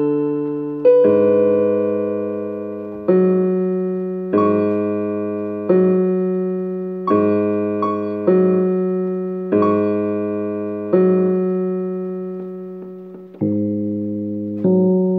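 Yamaha electronic keyboard played with a piano sound in a slow, repetitive minimalist improvisation. Chords over a low bass note are struck about every one and a half seconds, and each is left to ring and fade before the next.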